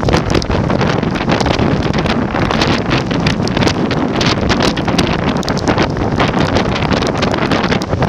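Hurricane-force Bora wind buffeting the microphone in loud, continuous gusts, mixed with the rush of storm surf.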